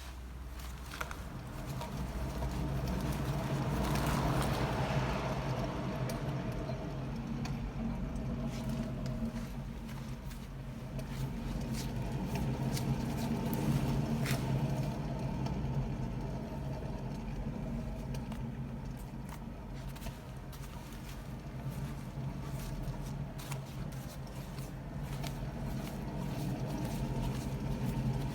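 A car's steady low hum that swells and eases slowly, with scattered light clicks and rattles.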